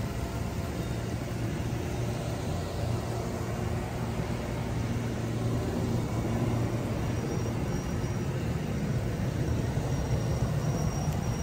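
Amtrak Northeast Regional passenger cars rolling past at speed: a steady low rumble of steel wheels on rail, mixed with the hiss of pouring rain.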